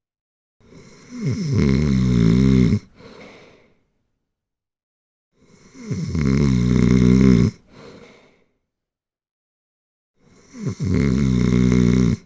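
A person snoring deeply and rhythmically: three loud, rattling snores about five seconds apart, each lasting about two seconds and followed by a short, quieter breath.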